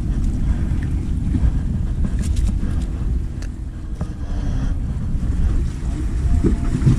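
Wind buffeting the microphone as a steady low rumble, with a few light clicks of gear being handled between about two and four seconds in.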